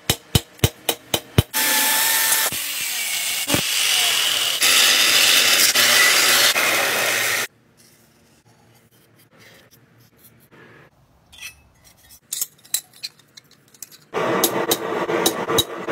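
A hammer strikes hot steel on an anvil, about eight quick blows in a second and a half. Then a power tool cuts or grinds steel with a loud, steady noise for about six seconds. A quiet stretch with faint scratches and taps follows, and near the end loud tool noise with sharp metal strikes starts again.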